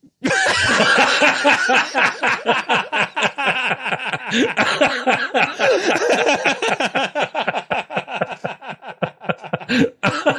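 Sustained, hearty laughter from men: a fast, unbroken run of ha-ha pulses lasting about ten seconds, with a short catch of breath just before the end.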